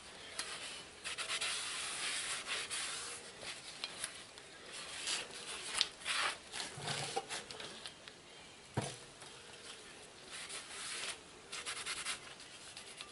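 Shop rag rubbing over a new brake rotor in repeated wiping strokes, cleaning off the rotor's greasy factory film. There is a single knock about nine seconds in.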